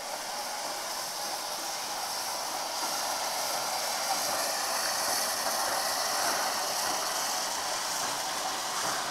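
Steady hiss of steam from the safety valves of Somerset & Dorset Joint Railway steam locomotive No. 88, a 2-8-0, blowing off, growing a little louder after a few seconds.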